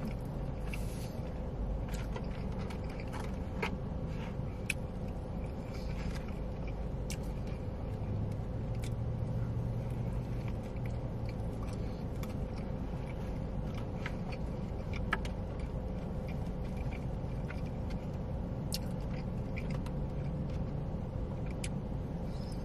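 Close-up eating sounds: scattered small wet clicks and smacks of chewing over a steady low hum.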